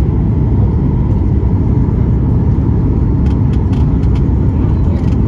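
Cabin noise of a Boeing 737 MAX 8 on short final, heard from a window seat over the wing: a loud, steady roar of its CFM LEAP-1B engines and the airflow. A few faint light clicks come in the second half.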